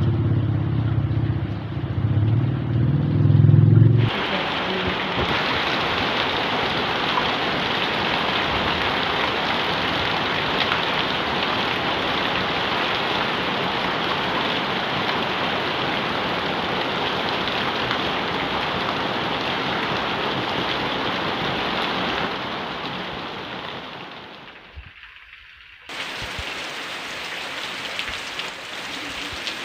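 A low engine rumble that cuts off sharply about four seconds in, followed by heavy rain falling in a steady, dense hiss. The rain fades a few seconds before the end and then returns a little quieter.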